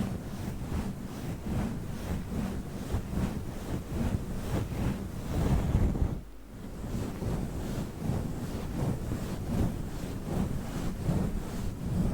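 A fluffy microphone cover rubbed and brushed against the microphone, giving a dense rushing, scratchy noise in quick repeated strokes. There is a short lull about six seconds in.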